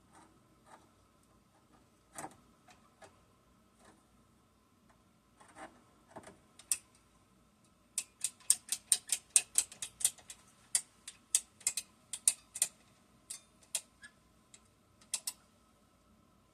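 Sharp clicks and taps from handling a PEX crimp tool and fittings: a few scattered clicks at first, then a quick irregular run of clicks, about three or four a second, through the second half.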